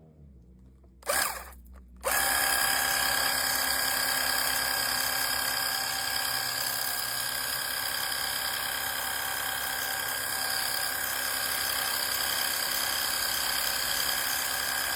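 Portable pressure washer's motor and pump running with a constant whine over a hiss of spray. A short burst comes about a second in, then steady running from about two seconds in.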